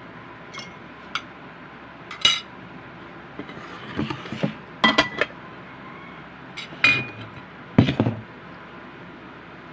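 Plates and eating utensils being handled, clinking and knocking against each other in irregular strikes, some with a short ringing tone; the loudest come about two, five, seven and eight seconds in.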